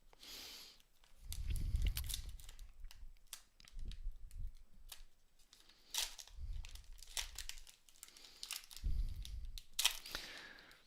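A foil trading-card pack being torn open, its wrapper crackling and crinkling in the hands, with several dull bumps of handling on the table.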